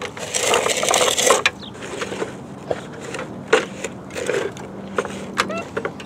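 A Tonka steel toy crane's bucket scraping and crunching through sand, then a few separate sharp clicks and knocks from its metal arm and bucket.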